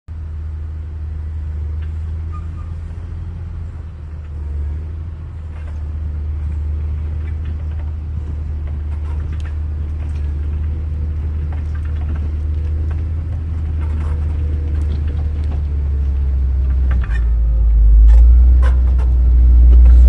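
Motor grader's diesel engine running steadily under load, a deep drone that grows louder as the machine comes close. In the last few seconds, its blade and tyres grinding through stony soil add scattered clicks and knocks.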